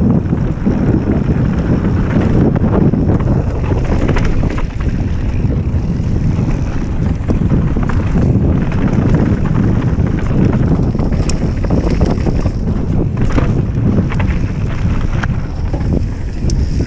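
Wind buffeting an action-camera microphone on a mountain bike riding fast down a dirt forest trail, over a steady rumble of knobby tyres on the ground. Sharp clicks and knocks from the bike come a few times, most clearly in the second half.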